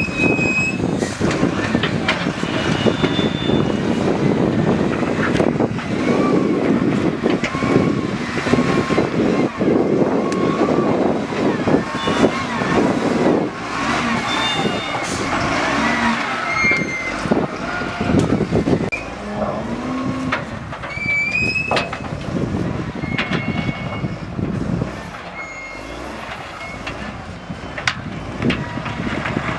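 A heavy vehicle's engine running amid steady outdoor noise, with scattered short high chirps and voices. It eases off somewhat near the end.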